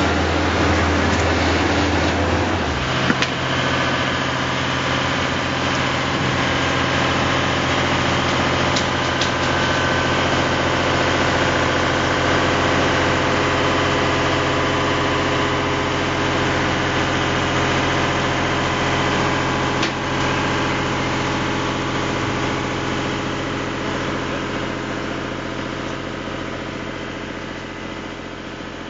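A machine runs steadily with an engine-like drone. Its low tone shifts about three seconds in, and the sound fades away near the end.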